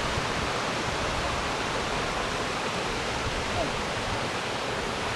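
Water of a cascading mountain stream rushing steadily over rock, an even, unbroken hiss.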